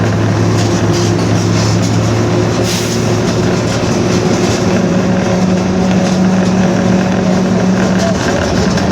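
Mercedes-Benz OF-1721 city bus under way, heard from inside: diesel running with constant road and body noise and a steady drone from a noisy (droning) differential. The hum moves to a higher pitch about halfway through.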